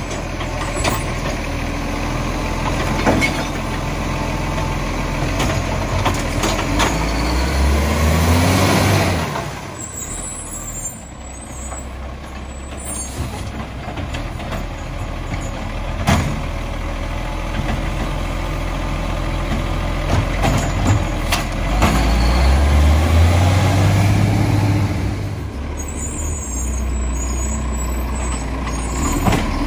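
Acco side-loader garbage truck's diesel engine running, revving up twice with a rising pitch and dropping back, with hisses of air brakes and sharp metal clunks in between.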